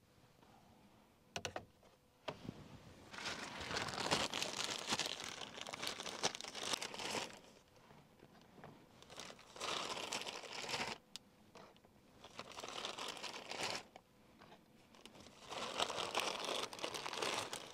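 Plastic packaging crinkling in four separate bursts, each lasting a few seconds, as mini sweet peppers are handled out of it; a couple of light knocks come shortly before.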